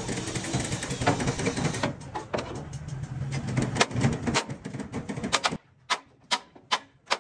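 Irregular sharp knocks and taps over a steady workshop noise. About five and a half seconds in, the background noise drops away and separate sharp knocks follow, about two or three a second.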